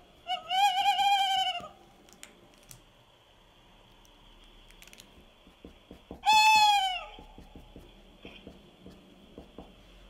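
A man's vocal impression of a tawny owl's twit-twoo call: two high hooting calls about five seconds apart. The first is held and wavers for just over a second; the second is shorter and falls in pitch.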